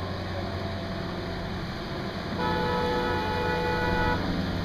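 A Friendship water taxi's engine hums steadily at a low pitch. About two and a half seconds in, a horn gives one steady, chord-like blast of nearly two seconds, then cuts off sharply.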